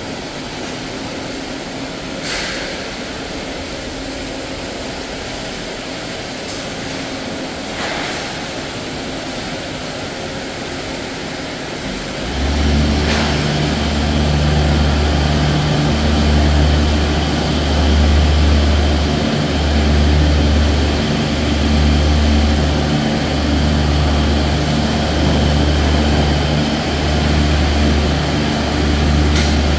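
Food-processing plant machinery running: a steady hum with a few light knocks, then about twelve seconds in a loud low drone sets in and swells and eases every second or two.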